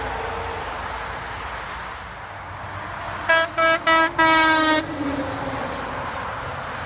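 Hadley H02000FD air horn on a Freightliner 108SD truck sounding three short blasts and a longer fourth one, all on one tone. The horn sounds over the steady noise of the passing truck and traffic.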